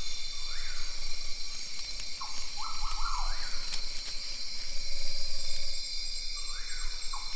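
Steady high-pitched ringing chorus of night insects, with short squeaky calls that rise and fall in pitch a few times over it.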